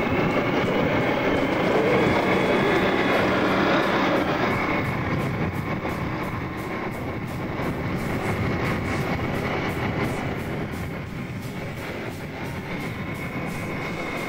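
Tracked armoured vehicle on the move, heard from its turret: a steady heavy rumble of engine and tracks with a faint whine, and from about six seconds in a fast, regular clatter.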